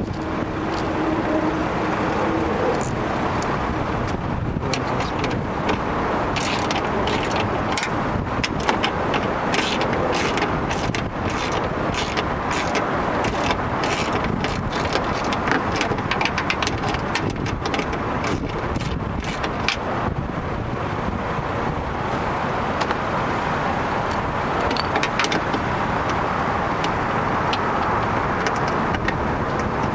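Socket wrench on an extension turning a bolt inside a car door, with many irregular metallic clicks and clinks through the middle stretch, over a steady rushing background noise.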